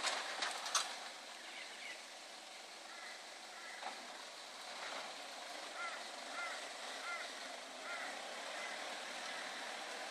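Mazda Bravo 4x4 ute driving slowly away over a rough dirt track, its engine a faint, even wash of sound. A few sharp clicks come at the very start, and short high chirps repeat about five times past the middle.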